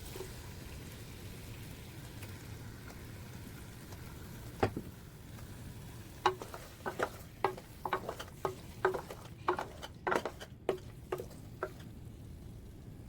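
Food frying in a pan with a steady sizzle. About five seconds in, a stirring utensil starts knocking against the pan in quick taps, about two a second, each with a short ring.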